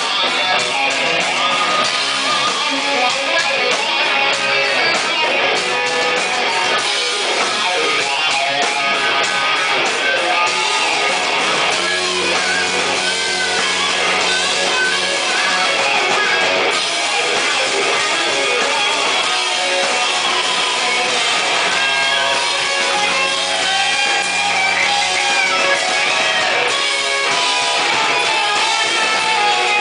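Live rock band playing: a Les Paul-style electric guitar over drums, loud and steady.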